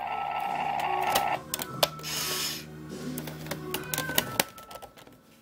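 Electronic transformation sound effect from a Transformers Ultimate Bumblebee toy's speaker: a rising whine that breaks off about a second in, then a rapid run of mechanical clicks and clanks with a short hiss. It cuts off a little after four seconds.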